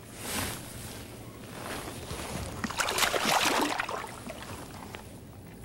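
A hooked bass thrashing and splashing at the water's surface beside the boat, with the heaviest splashing around the middle.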